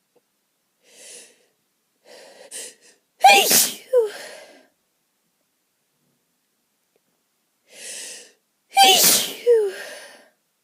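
A person sneezing twice from an itchy, allergic nose. Each loud sneeze comes after short, quick in-breaths and is followed by a brief second burst, the two sneezes about five and a half seconds apart.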